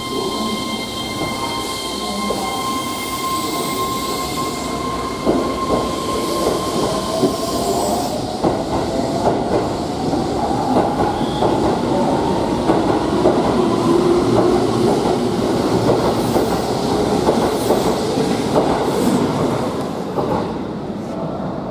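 Keihan 3000-series electric train pulling out of the platform, its traction motors whining and slowly rising in pitch as it gathers speed. Wheels click steadily over rail joints as the cars pass close by. A steady high tone sounds at first and stops about eight seconds in.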